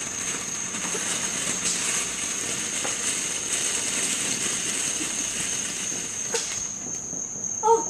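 Ground fountain firework spraying sparks with a steady hiss and crackle that dies away about six seconds in. Crickets keep up a thin steady high chirring throughout.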